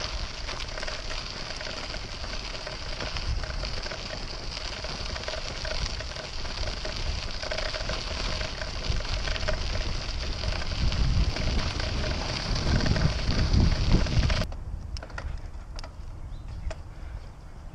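Bicycle tyres crunching over a gravel path while riding, a steady crackling hiss with rumble underneath. About three-quarters of the way through it cuts to a quieter stretch of scattered light clicks and rattles as the bike rolls over a dirt path.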